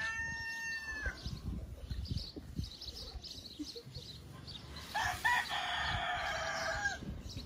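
A rooster crowing twice: the end of one crow fades about a second in, and a second full crow starts about five seconds in, its last note held for about two seconds before it drops off.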